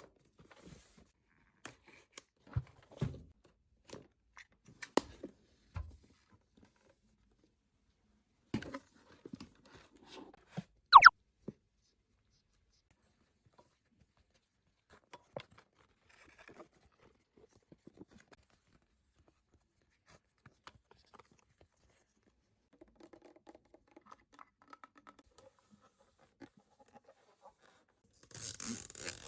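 Unboxing handling sounds: scattered taps and clicks as packaging and small plastic toys are handled, with a short sharp squeak about eleven seconds in. Near the end, a continuous tearing of packaging begins.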